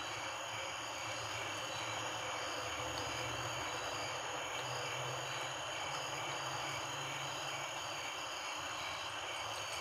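Night-time outdoor ambience: a steady hiss with crickets chirping in an even, repeating rhythm.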